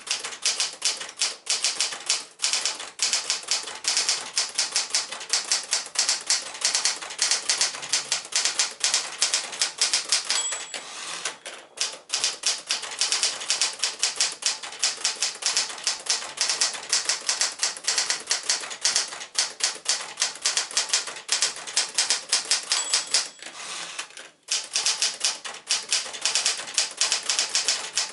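1964 Smith-Corona Galaxie manual typewriter being typed on, with fast runs of key strikes clacking against the platen. Twice a short bell rings, the end-of-line warning, and the typing pauses briefly soon after each ring.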